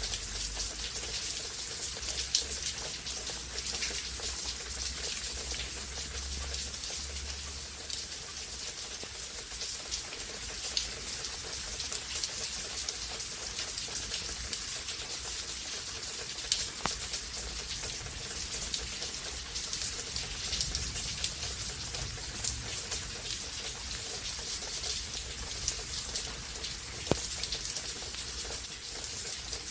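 Steady rain falling, a continuous hiss with many close, crisp drops pattering on surfaces.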